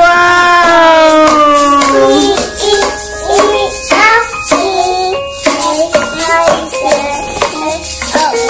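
Young children singing a nursery-rhyme song together while shaking toy maracas and a rattle drum in time.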